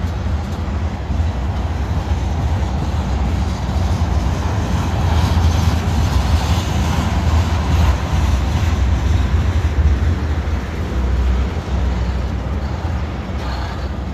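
Freight train of railroad tank cars rolling past: a steady, loud rumble and rush of steel wheels on rail, a little louder in the middle.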